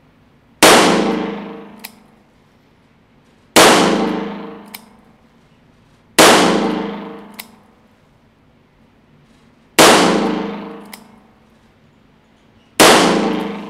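Five shots from a Taurus 856 Defender .38 Special revolver firing Fiocchi 130 grain full metal jacket rounds in single action, about three seconds apart, each echoing in an indoor range. After each of the first four shots comes a small click, the hammer being thumbed back for the next shot.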